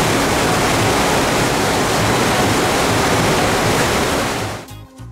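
Loud, steady rush of water from a FlowRider surf simulator, its pumped sheet of water pouring over the riding surface. It cuts off suddenly near the end and music takes over.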